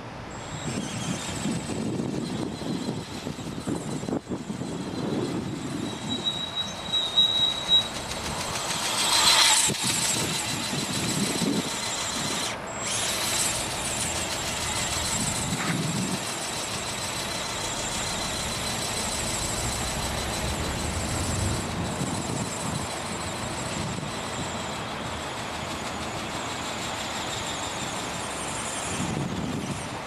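Wind buffeting the microphone in uneven gusts of low rumble, under a steady thin high-pitched whine, with a louder rushing gust about nine seconds in.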